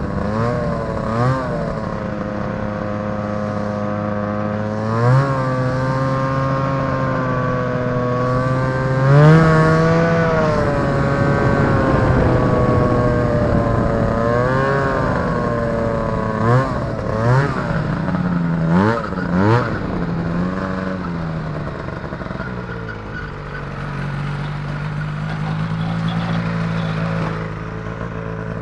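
Two-stroke Rotax 503 twin of a Polaris Indy Trail snowmobile running under way, its pitch rising and falling with the throttle. There are several quick throttle blips about two-thirds of the way through, then a steadier, lower run near the end.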